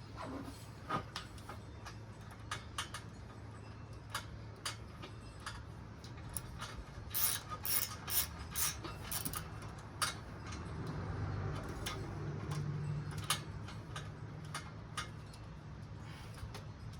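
Scattered metallic clicks and clinks of hand tools and metal parts being worked in a car's engine bay, with a quick run of about six sharper clicks about seven seconds in. A steady low hum runs underneath.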